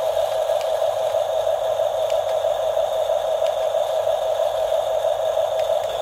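Toy RC bulldozer giving off a steady, wavering hum, with a few faint ticks on top.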